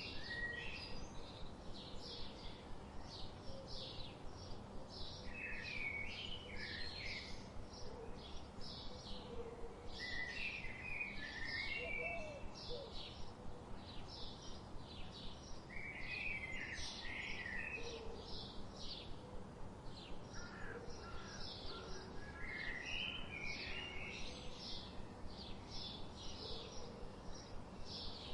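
Birds calling: a steady, evenly paced chirping at about two to three notes a second, while another bird sings a short warbled phrase about every five to six seconds.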